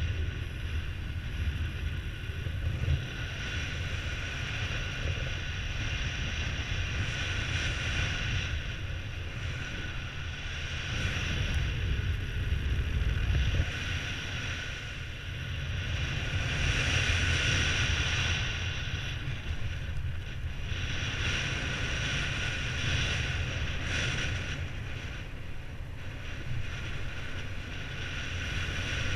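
Airflow buffeting the microphone of a camera on a paraglider pilot in flight: a steady wind rumble with a hiss above it that slowly swells and eases, under a few faint steady high tones.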